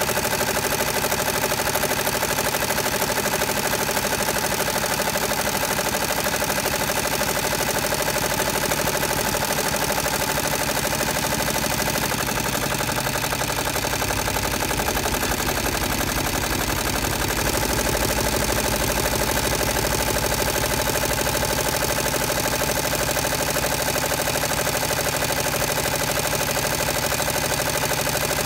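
Multi-needle embroidery machine running steadily, its needle stitching rapidly and evenly as it sews a monogram letter.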